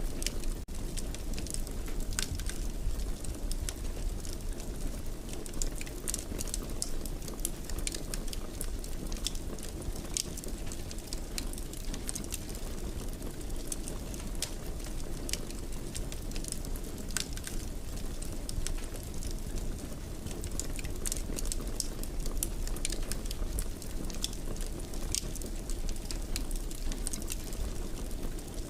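Fireplace fire crackling: a steady low rush of flame with frequent sharp pops and crackles scattered through it.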